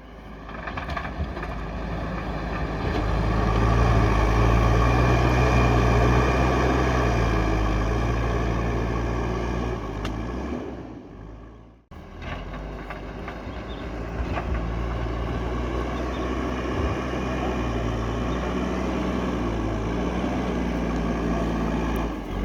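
Diesel engine of a heavy earthmoving machine running steadily under work. It fades out about halfway through, then the same engine sound cuts straight back in and runs on.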